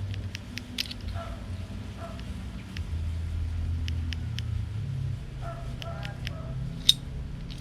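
Small clicks and taps of a gas blowback airsoft pistol's parts being handled during lubrication, with one sharper click about seven seconds in, over a low steady rumble.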